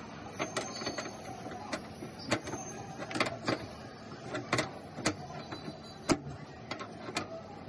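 Irregular clicks and knocks of hands-on installation work, tools and parts being handled, over a steady background noise.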